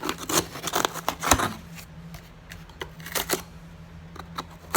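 Paper-wrapped half-dollar coin rolls being handled in a cardboard bank box: a series of irregular clacks and rustles, the loudest about a second in.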